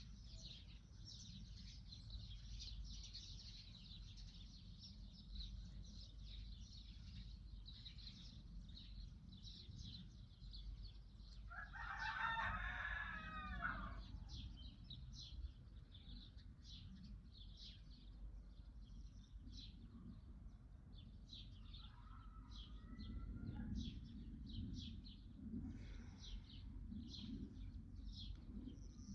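Small birds chirping steadily, with a rooster crowing once, loud and lasting about two and a half seconds, around twelve seconds in. A shorter, fainter call follows near the end.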